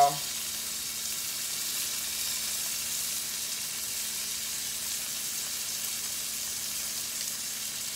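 Raw rice with celery and onion sizzling steadily in hot oil in a stainless steel sauté pan as the rice browns.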